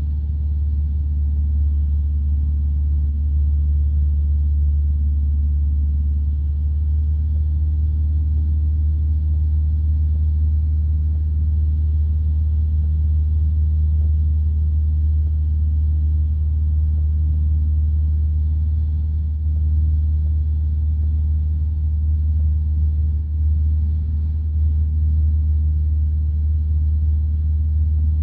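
Light aircraft's piston engine droning steadily in the cabin, with no change in power.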